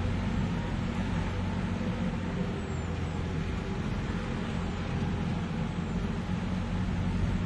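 Tractor diesel engine running steadily at low revs, a deep even throb with no clear change in speed.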